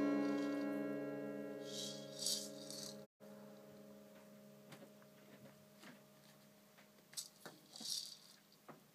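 Small acoustic guitar's strings ringing out and fading after being banged with a maraca, with a short maraca rattle about two seconds in. The ringing cuts off suddenly about three seconds in, followed by faint taps and another short maraca rattle near the end.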